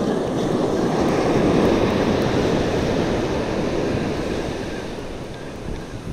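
Surf at the water's edge: a wave breaks and washes up the sand. The rush starts suddenly, swells for the first second or two and slowly fades.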